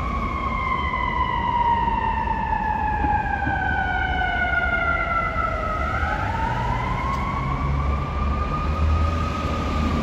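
Fire department emergency vehicle siren on a slow wail: its pitch falls for about six seconds, then rises again, over a low traffic rumble.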